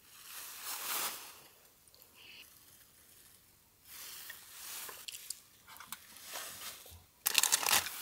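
Rustling and crinkling handling noises in soft spells, then a louder crackling, crunchy burst lasting about half a second about seven seconds in.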